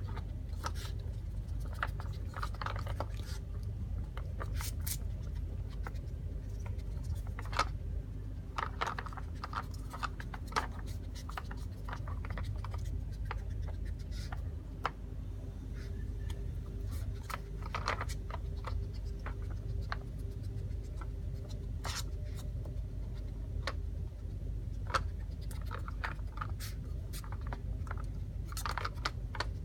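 Irregular clicks, scrapes and knocks of a plastic dog puzzle toy being worked: the Dog Tornado's stacked plastic layers being pushed round, with treats rattling. A steady low hum lies under it.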